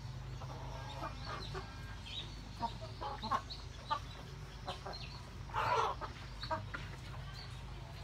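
A flock of white broiler chickens clucking: short scattered calls, with one longer, louder call about six seconds in, over a steady low hum.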